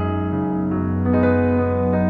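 Background piano music: slow, sustained keyboard notes, with new notes struck at the start, about two-thirds of a second in and again about a second in.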